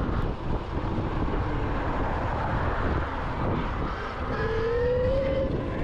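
Electric dirt bike being ridden: wind rushing over the microphone and rolling tyre noise, with a faint motor whine that rises in pitch about four seconds in.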